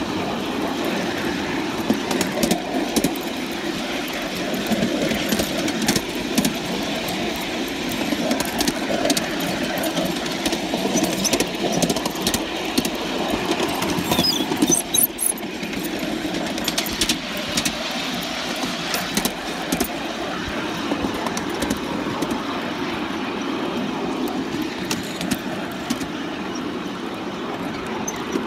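3½-inch gauge live steam model of the Penrhyn Quarry Railway locomotive 'Charles' running on the track: a steady mechanical running noise with many short clicks scattered through it.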